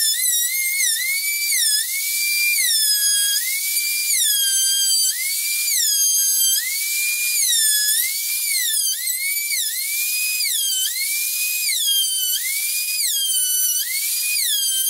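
Handheld trim router cutting a profile along a pine strip: a high-pitched motor whine whose pitch sags each time the bit bites into the wood and climbs back as the load eases, about once a second.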